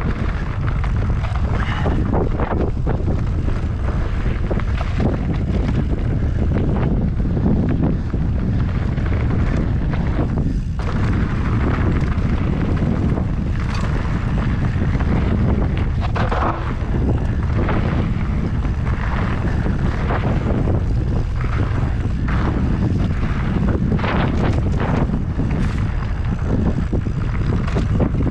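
Wind buffeting the microphone during a mountain bike descent, over a steady rumble of tyres on a dirt trail, with frequent short knocks and rattles from the bike on rough ground.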